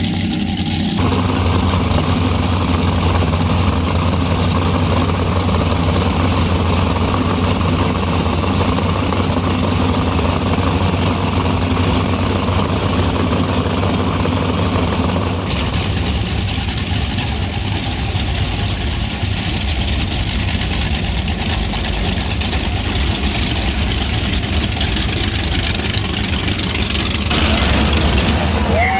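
Offshore racing powerboat engines idling with a steady low rumble, the sound changing abruptly about a second in and again a little past halfway. Near the end a boat runs past under power and the sound grows louder and rougher.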